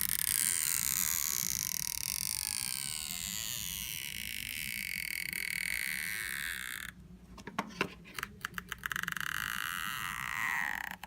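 Stretch-release battery adhesive strip in an iPhone 6s being pulled out from under the battery: a high squeaky whine that slides down in pitch and stops about seven seconds in. A few light clicks follow, then another brief squeak near the end.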